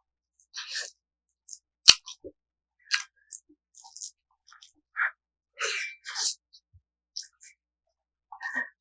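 Chewing and lip-smacking of someone eating pakbet, a series of short, irregular wet mouth noises, with one sharp click about two seconds in.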